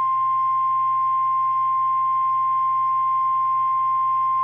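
NOAA Weather Radio warning alarm tone: a single steady 1050 Hz tone that signals an urgent warning broadcast is about to follow, here a tornado warning.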